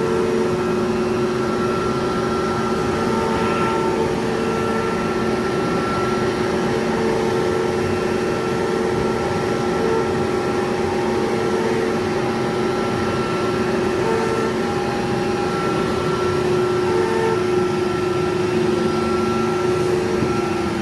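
CNC machine running: a steady motor whine made of several tones, with further tones cutting in and out every second or two.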